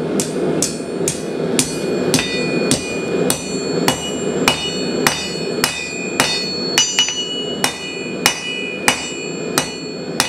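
Hand hammer striking hot 3/8 inch round steel stock on an anvil, about two blows a second in a steady rhythm. Each blow leaves a bright metallic ring, and there is a quick double tap about seven seconds in. The steel is being drawn out into a trident tine.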